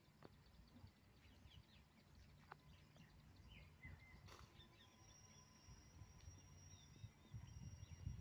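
Near silence: faint birds chirping over a low, uneven rumble, with one brief click about four seconds in.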